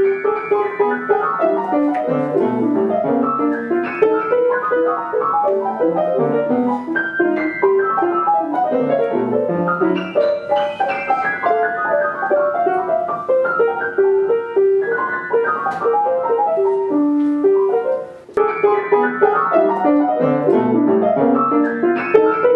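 Solo piano music, a quick run of many short notes, with a brief break about eighteen seconds in.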